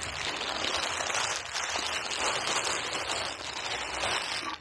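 A thin black plastic sheet crinkles as it is gathered up and folded by hand. The dense rustling goes on without a break, then cuts off suddenly at the very end.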